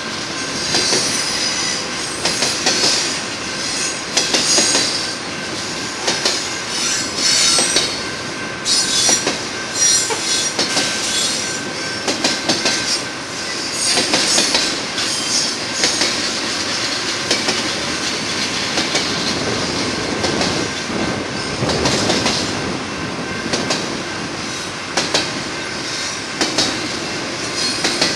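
BNSF double-stack container train's cars rolling past, their wheels clicking steadily over the rails, with recurring high-pitched wheel squeal.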